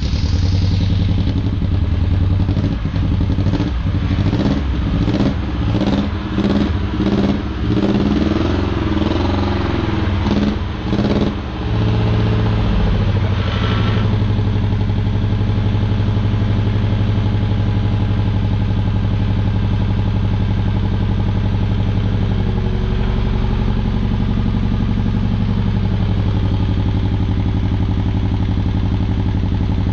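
Triumph Spitfire 1500's four-cylinder engine running loud through a homemade straight-through exhaust with one silencer box: revved in repeated blips for about the first twelve seconds, then settling to a steady idle.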